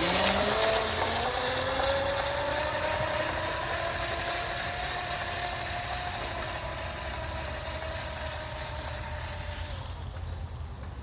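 Razor E325 electric scooter's chain-drive motor whining as it pulls away from a standstill: the pitch rises over the first few seconds, then holds steady and fades as the scooter rides off, with its tyres rolling on concrete.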